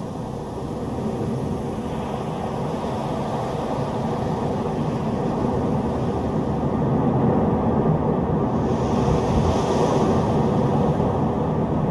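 Strong storm wind blowing in a low, steady rumble that swells gradually louder, with a brief higher hiss of a gust a little past the middle.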